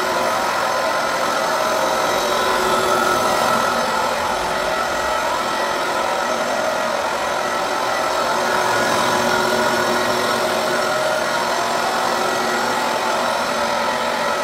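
A single-disc rotary floor buffer runs steadily with its pad spinning on a hardwood floor. It makes an even machine whir with a constant whine in it.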